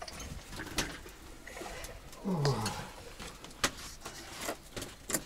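Scattered knocks and clinks of tableware and bottles at a table, with a short low voice sound falling in pitch about two and a half seconds in.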